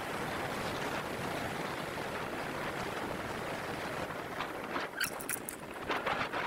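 Wind rushing over the action camera's microphone and tyre noise from a moving bicycle, with a run of sharp clicks and rattles in the second half as the bike rolls over rougher ground.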